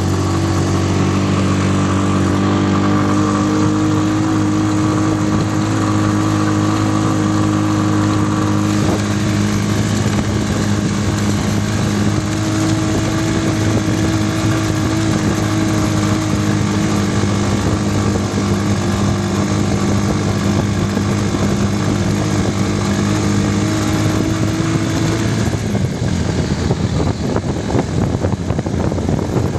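Vehicle engine running steadily while under way, heard from aboard. The hum holds an even pitch with small drifts, and near the end it gives way to rough rushing noise.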